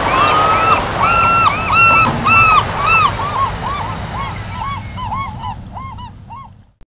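A flock of birds honking: many short, overlapping calls, dense at first, then thinning and fading out until the sound cuts off just before the end.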